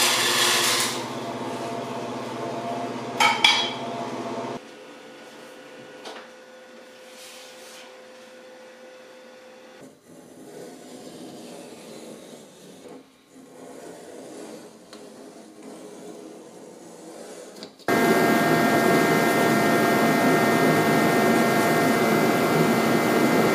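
Hand work on a metal workbench: rubbing and scraping, ending with a bare copper-clad circuit board being scrubbed with an abrasive pad. A loud steady machine drone with a few fixed pitches runs at the start, stops suddenly, and comes back suddenly, louder, for the last few seconds.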